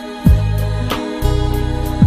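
Instrumental music with a slow beat: deep kick drums that fall in pitch, a sharp snare hit between them, a low bass note held from just past the middle, and sustained keyboard-like tones.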